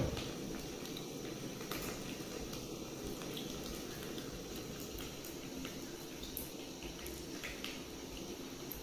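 Small dried fish boiling in an aluminium pot over a gas cylinder burner: a steady bubbling hiss, with a knock right at the start and a few faint clicks.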